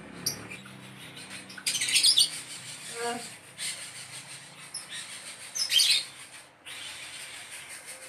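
A young coucal chick giving short, harsh, raspy calls, typical of a hungry chick begging near food. The loudest bursts come about two seconds in and again near six seconds.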